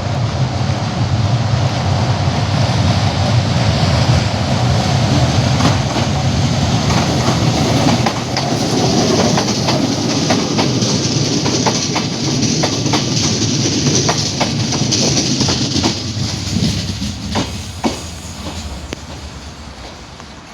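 A train passing, its wheels knocking over rail joints in a run of sharp clicks, the sound dying away near the end.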